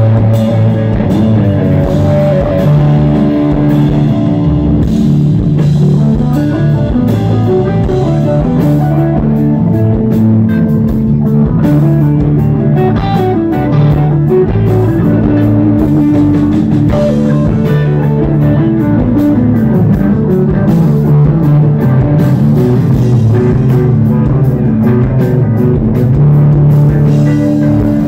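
Southern rock band playing live: a semi-hollow electric guitar over a drum kit, loud and continuous.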